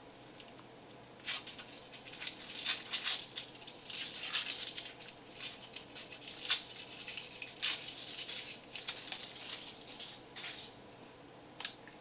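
Foil wrapper of a Kinder Surprise chocolate egg crinkling as it is unwrapped by hand: a dense run of irregular crackles and rustles, starting about a second in and stopping shortly before the end, followed by a single click.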